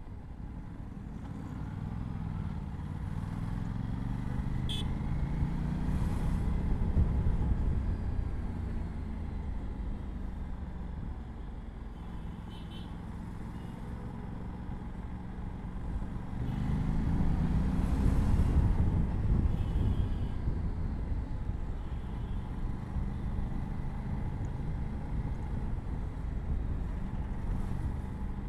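Aprilia RS 457's parallel-twin engine on its stock exhaust, heard from the bike while riding. It accelerates twice through the gears, about two seconds in and again past the middle, its pitch climbing and dropping back at each shift. In between it runs steadily at cruising speed.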